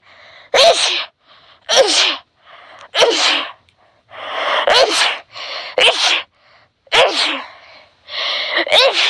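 A person sneezing repeatedly in a rapid fit, about seven sneezes roughly a second apart, each a sudden burst with a falling voiced 'choo', with sharp in-breaths before some of them. The sneezes are from an allergy.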